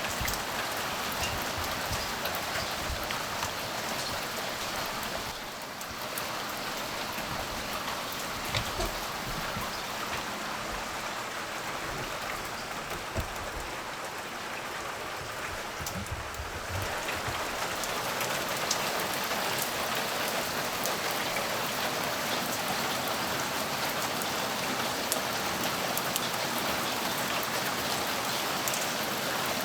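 Steady rain falling, a continuous hiss dotted with the sharp taps of individual drops; it eases slightly a few seconds in and grows a little heavier again past the middle.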